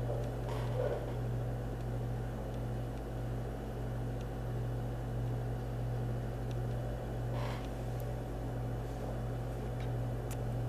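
A steady low mechanical hum runs unchanged, with a couple of faint brief rustles, one about half a second in and one past the middle.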